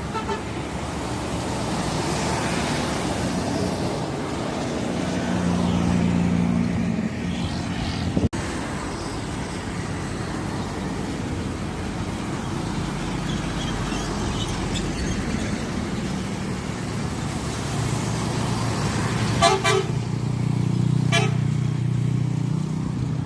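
Road traffic with heavy bus engines passing, then a bus horn sounding in two short bursts of quick pulsed blasts near the end.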